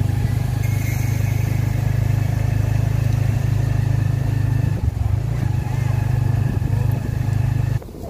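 An engine running steadily and loudly, with a brief dip about five seconds in, cutting off abruptly near the end.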